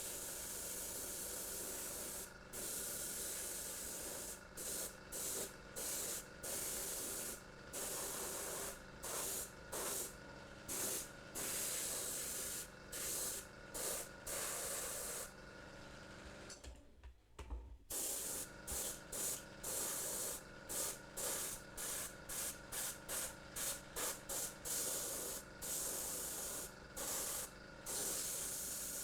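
Airbrush spraying paint in many short bursts of hiss, the trigger pressed and released again and again, with a longer break about sixteen seconds in.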